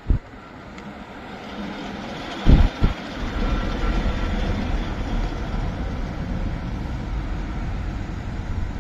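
DAF articulated lorry with a curtainsider trailer passing close by as it rounds a bend. Its diesel engine and tyres grow louder over the first three seconds, then hold steady. A short, loud low buffet, like wind on the microphone, comes about two and a half seconds in.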